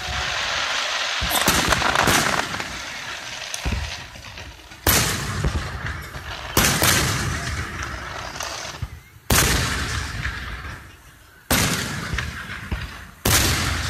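Fireworks show: aerial shells bursting with loud bangs. A dense stretch of crackling comes first, then about five sudden bangs a second or two apart, each fading away in a rumble and crackle.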